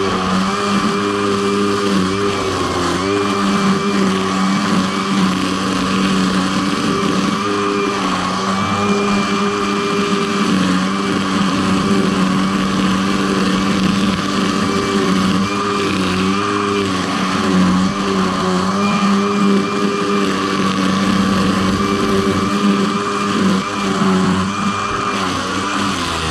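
A motor running steadily throughout, a hum with a higher whine above it, its pitch wavering a little now and then.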